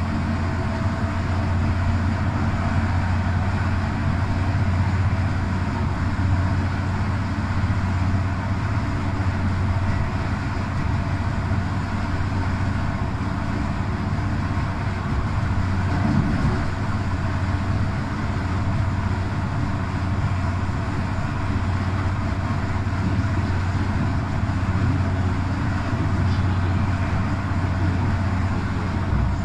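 Steady running noise of a moving S-Bahn train (class 143 electric locomotive with X-Wagen coaches) heard from on board: an even rumble with a strong low hum that does not change.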